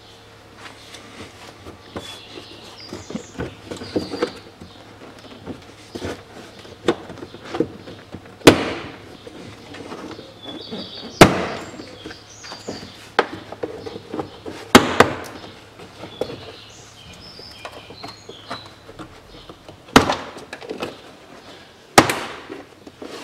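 Door-card retaining clips on a Range Rover Evoque front door snapping loose as the trim panel is pried off from below: several sharp cracks, about five loud ones spread out, with lighter clicks and rubbing of the panel in between.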